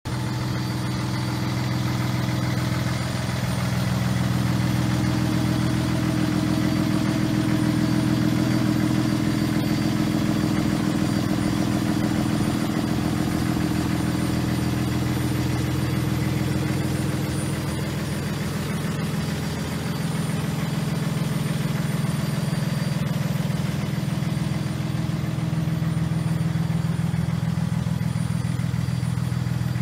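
Cummins diesel engine of a 2009 Freightliner Business Class M2 dump truck idling steadily.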